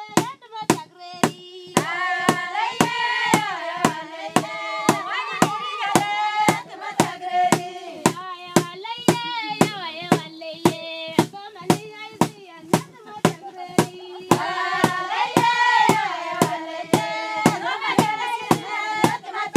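Music: voices singing a melody over a steady beat of hand claps, a little over two claps a second.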